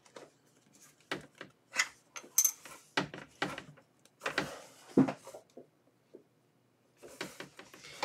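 Plastic retaining clips of a Lenovo Ideapad 330's bottom cover clicking and snapping loose as a nylon pry tool is worked along the case seam: a string of sharp clicks and small knocks, a short pause near the middle, then a few more clicks near the end.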